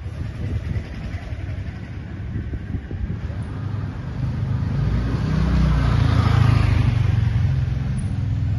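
Motor scooter riding up the street and passing close by, its small engine getting louder to a peak about six seconds in, over low street rumble.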